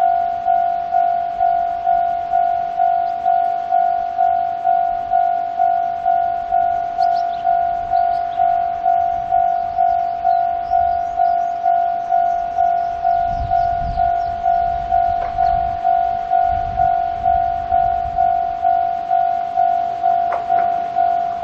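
Japanese railway level-crossing electronic warning bell with a Tokai-type tone, ringing steadily at about two dings a second, each ding fading before the next: the crossing is active for an approaching train.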